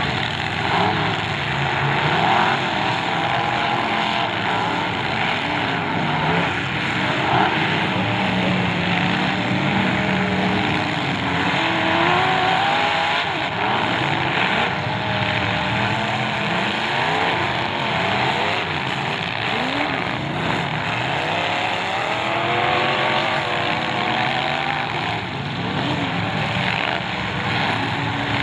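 Several demolition derby cars' engines running and revving at once, their pitches rising and falling over each other as the cars accelerate and push into one another.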